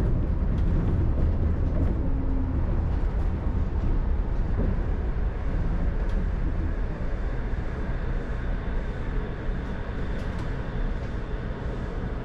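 Shonan Monorail suspended monorail car running on its rubber tyres and slowing to a stop at a station: a steady low rumble that eases off, with a faint whine coming in during the second half.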